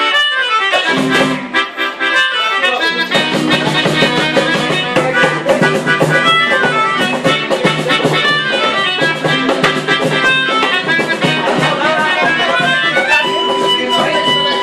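Melodica playing a fast running melody, with strummed acoustic guitar and a tambourine keeping the rhythm; the melodica holds a long note near the end.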